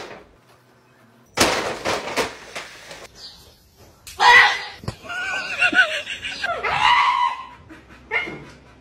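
A paper bag rustling and crinkling for about a second and a half. Then, from about four seconds in until near the end, a goat bleating in loud, wavering cries.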